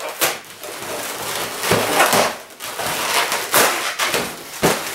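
Inflated latex modelling balloons squeaking and rubbing against each other as they are twisted and locked together, with a couple of sharp squeaks.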